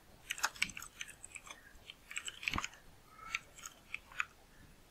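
Computer keyboard typing: quick, irregular keystroke clicks, with one sharper keystroke about halfway through.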